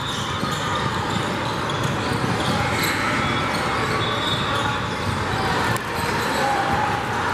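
Basketball game sounds in a gym: a ball dribbling on the hardwood court and sneakers squeaking briefly, over a steady hubbub of spectators.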